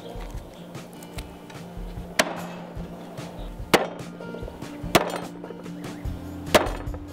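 Cleaver chopping through dried salted fish onto a wooden stump chopping block: four sharp chops, roughly a second and a half apart, over soft background music.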